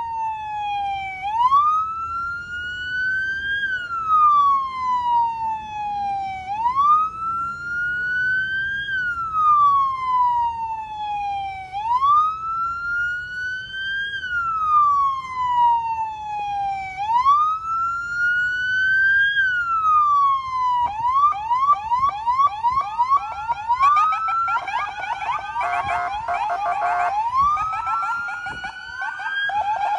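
Police car siren sounding a slow wail that rises and falls about every five seconds. About two-thirds of the way through it switches to a rapid yelp, and a second siren's wail sounds over it.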